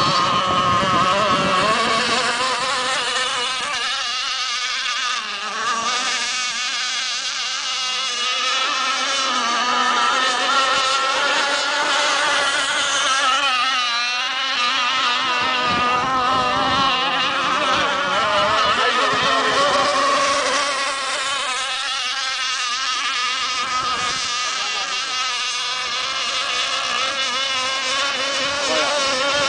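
Small engines of radio-controlled racing boats whining at high revs. Several high buzzing pitches overlap and waver up and down as the boats speed up and slow down.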